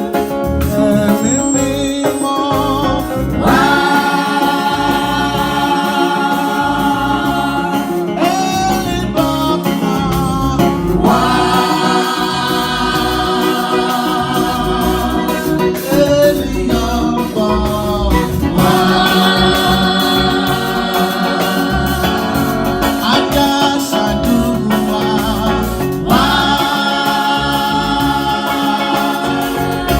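Church choir singing a gospel hymn with instrumental backing, in long held phrases.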